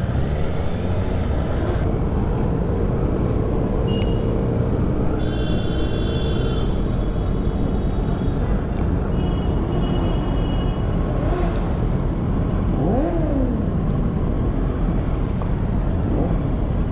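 Many motorcycle engines running together in a slow-moving procession, a steady rumble with a few engines revving up and dropping back at times.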